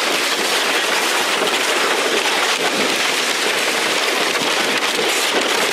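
Sled sliding fast down an icy snow chute: a steady, loud hiss of the sled scraping over the ice, mixed with rushing air on the camera.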